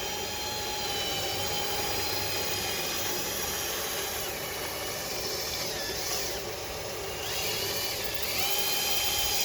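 Power drill spinning a dryer-vent cleaning brush on rods through the duct. Its motor whine sags in pitch twice as the brush loads up, then recovers.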